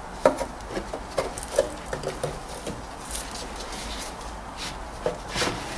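Irregular small knocks, clicks and scrapes of a used oil filter being wiggled and bumped against the exhaust pipe and engine parts as it is worked out through a tight gap under the car.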